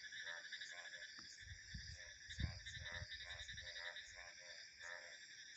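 Frogs calling in a chorus, a pulsed croak repeating about twice a second, over a steady high chirring of crickets and other insects. A low rumble of wind comes in about one and a half seconds in and lasts about two seconds.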